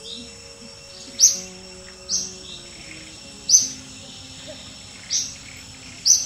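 A bird repeating a short, high chirp every second or two, five loud calls in all, over soft background music.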